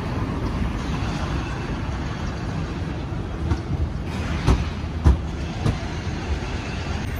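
Road traffic on a busy city street: a steady rumble of passing cars. A few short knocks come one after another around the middle.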